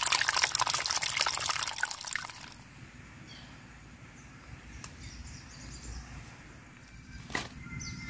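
Small stream of water trickling and splashing over stones into a paddy-field ditch. It stops abruptly about two and a half seconds in, leaving a quiet outdoor background with a few faint high chirps.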